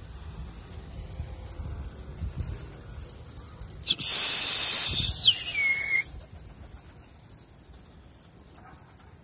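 A loud two-note whistle calling the flying pigeons down: a long steady high note about four seconds in, then a shorter, lower note after a quick drop in pitch.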